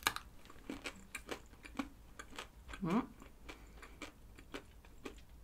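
Close-miked chewing of a Dubai-style chocolate with a hard chocolate shell and a crisp kadaif and pistachio filling: a run of small crunchy clicks. A brief bit of voice comes about three seconds in.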